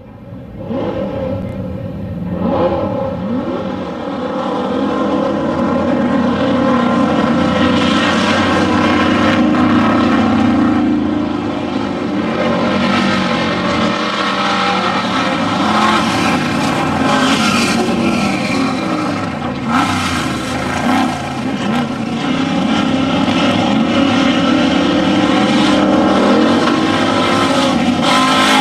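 Off-road desert race vehicle engines running, a loud steady drone with a few changes in pitch.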